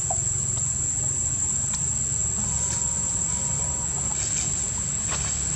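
Steady high-pitched drone of insects over a constant low rumble, with a few faint clicks.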